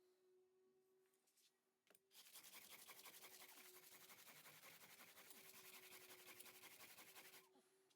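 Quiet, continuous scratchy scraping that starts about two seconds in and stops about five seconds later, over a faint steady hum.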